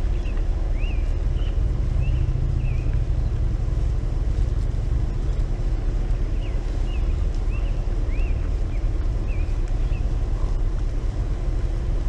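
A steady low rumble, with a songbird chirping over it in short quick rising-and-falling notes, in one bout over the first few seconds and another in the middle.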